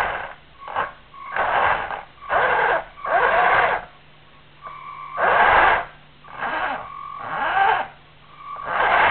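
Small motor of a remote-controlled vehicle running in short bursts, about eight spurts of under a second with short pauses between them, then running steadily near the end.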